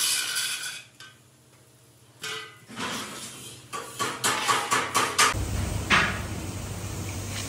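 Angle grinder grinding a welded steel frame for about a second, then stopping. After a short lull come a string of sharp metallic clanks and knocks, then a steady low hum.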